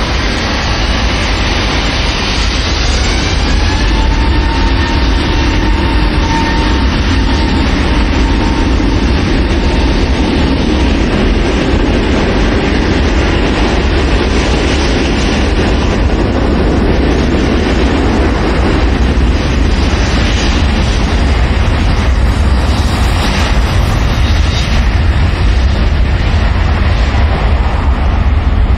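Airbus A380's four Rolls-Royce Trent 900 turbofans spooling up and running at takeoff power through the takeoff roll: a loud, steady, deep rumble, with a faint rising whine in the first few seconds.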